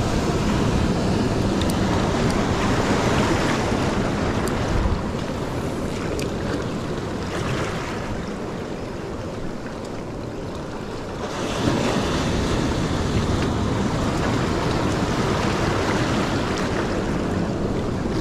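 Surf washing in and out around jetty rocks, with wind buffeting the microphone. The wash eases about five seconds in and surges back up about two-thirds of the way through.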